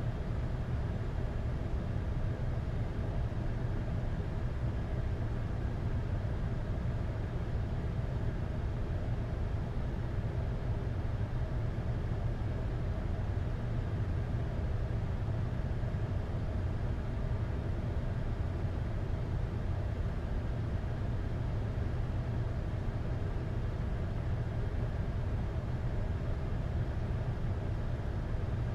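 Steady flight-deck background noise of a Boeing 747-8: an even low rumble with faint steady hums, unchanging throughout.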